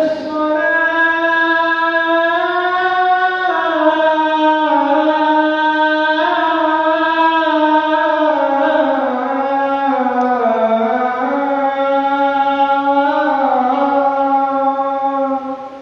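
A man's voice chanting one long, melismatic phrase in Islamic style, held for about sixteen seconds. The pitch wavers slowly and dips about two-thirds of the way through before settling.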